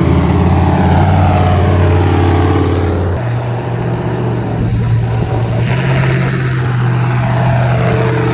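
A large vehicle engine running loudly close by, with a steady low drone that shifts in pitch about three seconds in.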